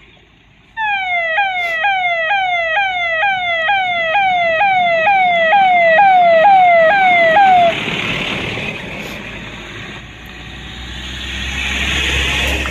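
Electronic siren from a roof-mounted loudspeaker on an official SUV, a loud falling wail repeating nearly twice a second, which cuts off about eight seconds in. Then engine and tyre noise on the dirt track as the SUVs drive past, loudest near the end as one passes close.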